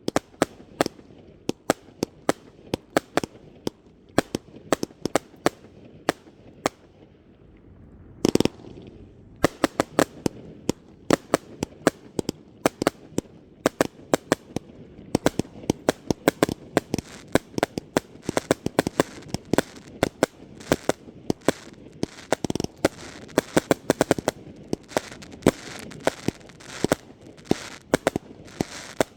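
Consumer fireworks going off: a long, irregular string of sharp pops and crackles, with a louder bang about eight seconds in and another about twenty-two seconds in. The popping grows denser after about ten seconds.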